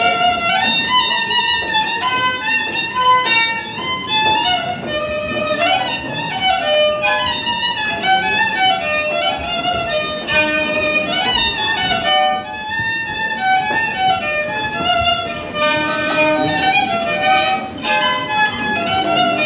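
A solo Podhale highlander folk tune on a small, high-pitched folk instrument: one lively melody of quickly changing notes, with ornaments and slides between some of them.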